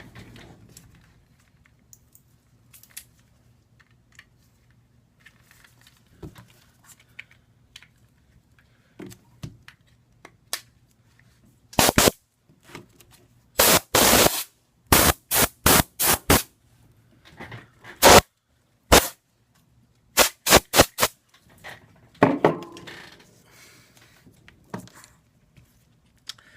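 Can of compressed air giving a series of short, sharp blasts, about a dozen over ten seconds, dusting off a work surface. Faint handling clicks come before and after the blasts.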